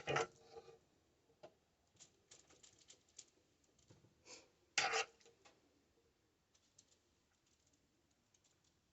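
Soft scattered clicks and taps of a teaspoon scooping a meat-and-cream-cheese filling onto jalapeno halves, with two louder knocks, one at the start and one about five seconds in.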